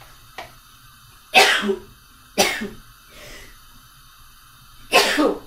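A woman coughing: three separate loud coughs, one and a half seconds in, a second later, and again near the end.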